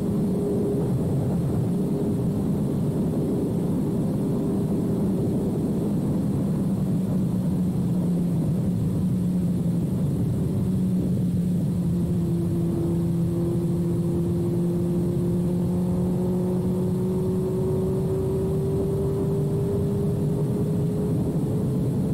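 2006 Suzuki GSX-R1000's inline-four engine through a full carbon/titanium Yoshimura exhaust, heard from the rider's seat at a steady cruise with a constant rush of wind. About halfway through, the engine note drops a little and then climbs slowly as the bike picks up speed.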